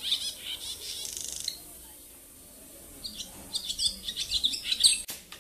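Small bird perched on an overhead cable chirping in two runs of quick, high calls, with a gap of about a second and a half between them. A sharp click near the end.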